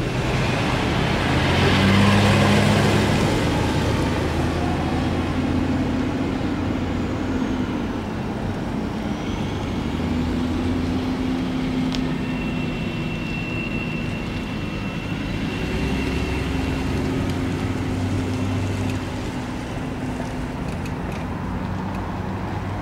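Diesel locomotives running at a distance: a steady low rumble whose engine tones hold and shift a little in pitch. It swells briefly about two seconds in.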